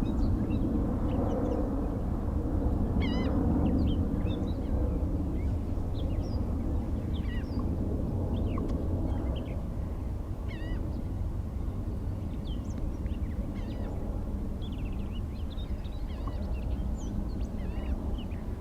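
Low rumble of jet aircraft easing off over the first ten seconds, with small birds chirping in many short, quick calls throughout.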